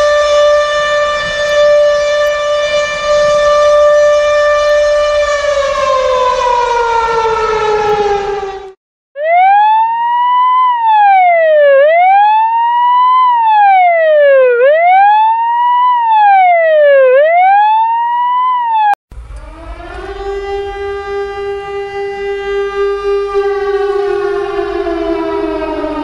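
Three emergency-vehicle sirens in turn. First an American ambulance siren holds one pitch, then winds down. After a short gap a Chilean ambulance siren wails slowly up and down about four times and cuts off. Then an American fire truck siren holds a lower pitch over a low rumble and starts to wind down near the end.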